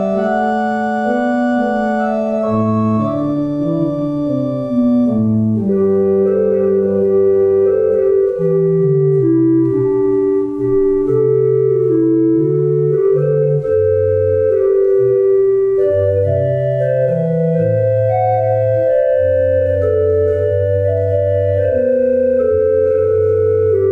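Church organ playing slow music in held chords over a moving bass line; the higher notes drop away about five seconds in, leaving a softer, lower texture.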